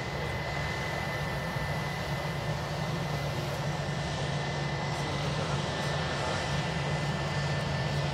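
Jet engines of a four-engine Boeing 747-8 in a steady, low rumble as the airliner climbs away after takeoff.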